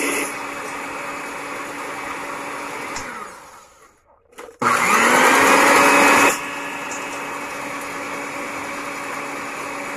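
Electric hand mixer beating egg whites at low speed, a steady motor whine. About three and a half seconds in it winds down and stops; a second later it starts again, rising in pitch and louder at first, then settles back to a steady run.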